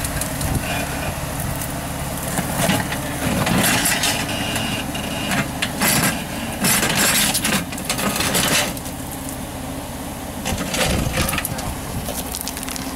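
Jeep TJ rock crawler's engine running at low speed as it crawls over rock, with loud bursts of rock crunching and scraping under the tyres several times.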